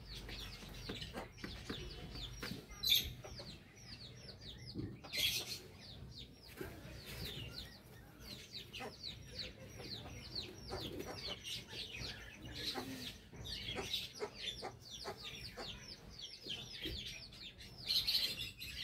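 Chickens clucking and calling, many short high falling calls in quick succession, with a few louder calls standing out.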